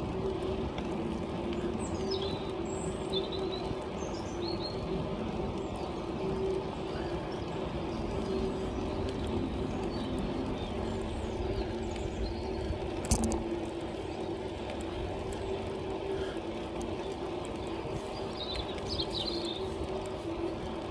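Bicycle rolling along a tarmac path: a steady tyre hum over a low rumble, with birds chirping a few times and one sharp knock about 13 seconds in.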